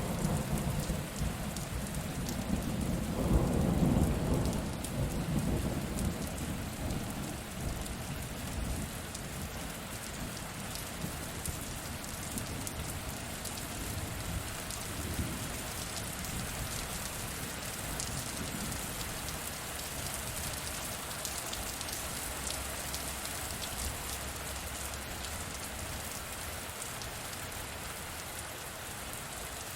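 Steady heavy rain with a roll of thunder that swells to a peak about four seconds in and fades out over the next few seconds. After it, the rain carries on alone, with fine drop ticks.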